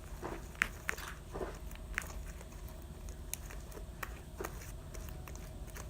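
Borax-activated Elmer's glue slime being kneaded by hand: scattered sticky squelches and wet clicks, most of them in the first couple of seconds.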